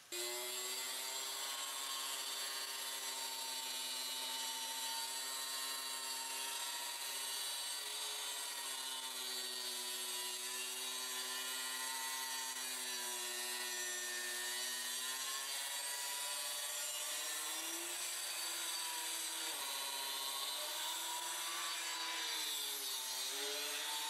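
Handheld water-fed wet saw cutting a granite countertop slab: a steady high motor whine with overtones. Near the end the pitch wavers and dips several times as the blade is pushed through the stone.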